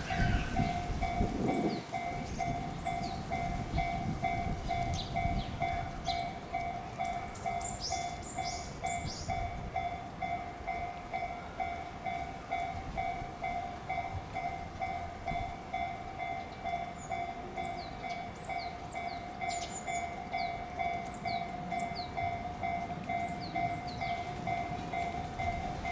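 Japanese railroad crossing warning bell ringing in an even, rapid repeating ding while a train rumbles over the rails through the crossing.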